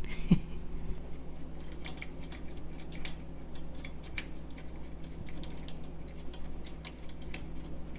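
Light, irregular metallic clicks and ticks of nuts and washers being fitted and threaded by hand onto the strut tower studs.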